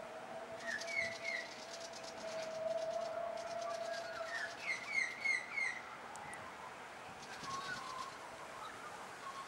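Birds chirping in short series of calls, loudest about a second in and again around five seconds in, over the faint steady whine of departing garbage trucks that fades out about halfway through.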